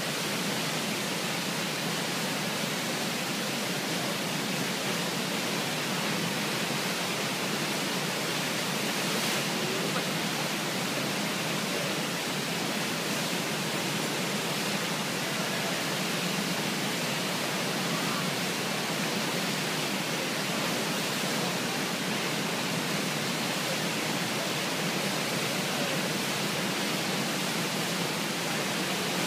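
Steady rush of churning whitewater from the Eisbach river's standing surf wave.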